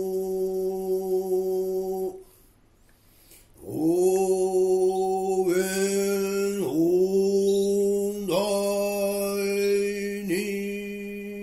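A single voice in Nichiren Buddhist chanting, intoning in a slow, drawn-out monotone: each syllable held on the same steady pitch and joined to the next by a brief dip. It breaks off for about a second and a half near the start, then resumes in five long held tones.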